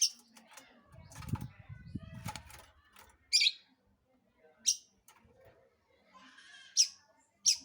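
Long-tailed shrike (cendet) giving five short, sharp calls spaced one to two seconds apart, between bursts of rapid chattering song. A low rumble comes in about a second in and lasts over a second.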